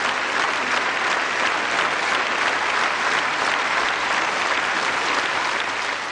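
Theatre audience applauding: steady, dense clapping that eases off near the end.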